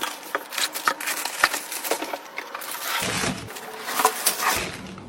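Irregular clicks, taps and scraping of hard computer parts being handled and fitted together during assembly, with louder stretches of rubbing about three and four seconds in.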